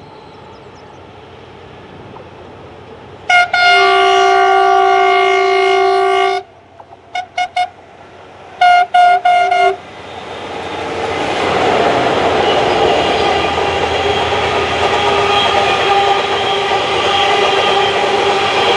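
Horn of a South African Class 15E electric locomotive: one long chord blast of about three seconds, then three faint short toots and three loud short blasts. Then the locomotives and a long rake of empty ore wagons roll past as a rumble that swells and holds steady, with a high ringing whine over it.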